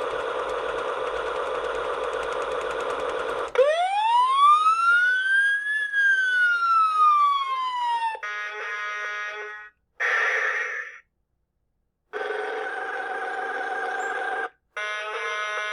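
Electronic sound effects from a toy fire truck's small speaker. A steady buzzy tone gives way, about three and a half seconds in, to a siren that wails up once and back down. Several short buzzy blasts with pauses between them follow.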